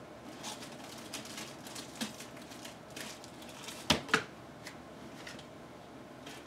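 Rummaging through craft supplies in search of ribbon: scattered light clicks and rustles, with two sharper knocks in quick succession about four seconds in.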